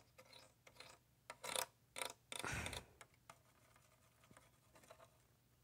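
Fingers tapping and rubbing on the plastic lens and housing of a Gentex Commander 3 horn-strobe: faint scattered clicks and scrapes, the longest a scrape of about half a second two and a half seconds in.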